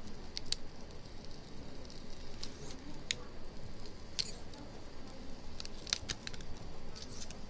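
Faint irregular clicks and small scrapes of a short blade working under the polarizer film on a phone LCD.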